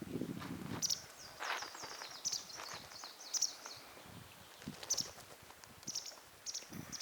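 A small bird chirping outdoors: short, high chirps repeated every second or so, with a quick trilled run in the middle. Rustling in the grass near the start.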